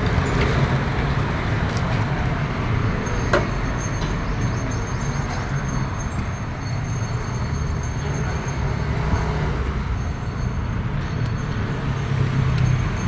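Street traffic: a passenger jeepney passes with its engine running, over a steady low rumble of road noise. A single sharp click comes about three and a half seconds in.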